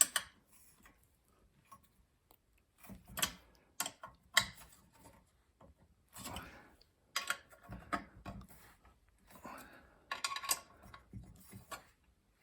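Scattered light clicks, taps and knocks of hands and tools handling metal and plastic parts, with quiet stretches between.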